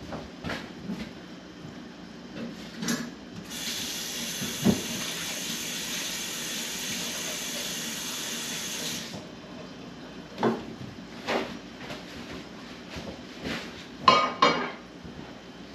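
Kitchen sink tap running in a steady hiss for about five seconds, then turned off, followed by a few clinks and knocks of dishes.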